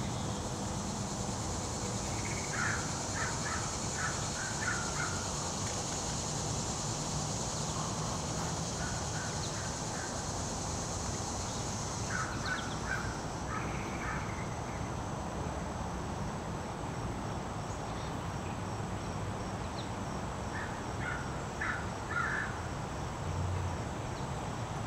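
Fish crow calling: several groups of short, quick caws spread through the stretch, with gaps between them, over a steady high hum that drops away about halfway through.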